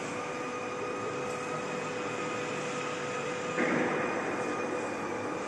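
Steady hum of workshop machinery with a few steady whining tones, and a brief louder burst of noise about three and a half seconds in.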